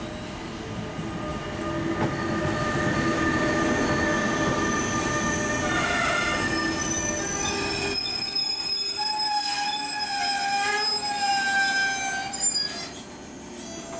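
Electric-hauled intermodal freight train (GTS, class E483 locomotive) rolling into the station and braking to a halt. A low rumble gives way to loud, steady high-pitched squealing from the wheels and brakes in several tones. A short sharp clunk comes near the end as it stops, and the sound then falls away.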